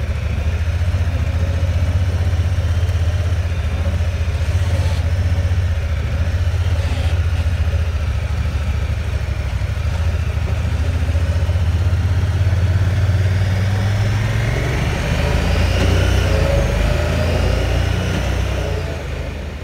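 Engine running with a steady, loud low rumble; a fainter whine rises and falls over it late on.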